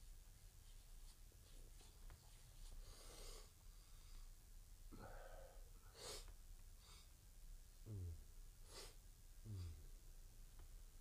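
Near silence, with a few faint breath-like noises and two short, low sounds that fall steeply in pitch about two-thirds of the way through.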